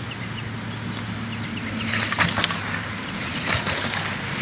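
Cyclocross bike tyres swishing through wet grass as the bike comes closer, rising to hissy swells from about two seconds in, over steady outdoor noise with a faint low hum.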